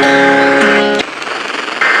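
A brief musical chord lasting about a second, its low note dropping partway through, then radio hiss. Near the end the harsh, buzzing two-tone data burst of an Emergency Alert System SAME header begins.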